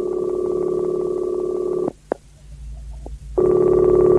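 Telephone ringing heard over the line as a call is placed: two rings of about two seconds each, a steady fluttering tone, with a short click in the pause between them.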